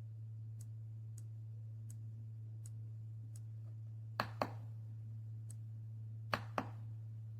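Mechanical keyboard keys pressed twice, about four and six seconds in, each giving a quick click-clack pair as the key goes down and springs back. Behind them are a steady low hum and faint, regular ticks about every 0.7 s.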